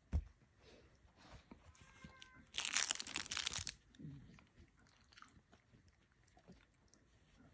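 Silken windhound puppy mouthing and chewing at a borzoi's fur, with soft wet clicks and rustling. A loud rustle of about a second comes near the middle, and a short low grunt follows about a second later.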